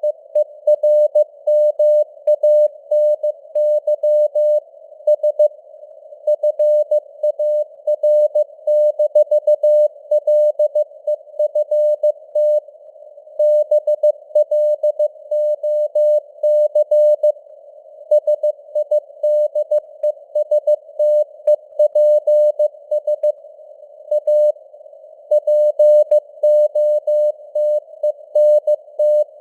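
Morse code (CW) keyed at 15 words per minute: a single-pitch beep switched on and off in dots and dashes with short pauses between words. It sits over a faint hiss of simulated radio noise, and the signal strength fades up and down (QSB).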